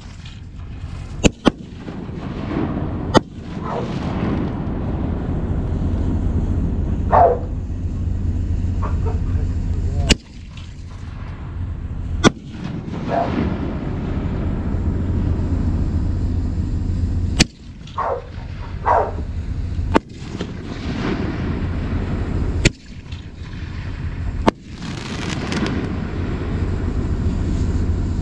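Fireworks display: about ten sharp bangs a few seconds apart from aerial shells, over a continuous rumble of booms.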